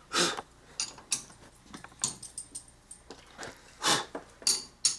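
Metal tools and parts clinking and knocking at a lathe as a workpiece is set up to be driven between centers: several sharp, irregular knocks, one slightly longer clunk about four seconds in.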